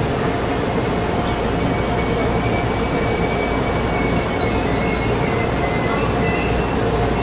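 TRA EMU500 electric multiple unit pulling into the station, its running noise a steady rumble. Thin, high wheel squeals come and go over it.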